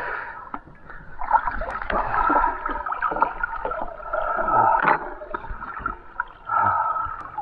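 A snorkeler breathing hard at the water surface after a breath-hold dive, short of air, with water gurgling and sloshing around him.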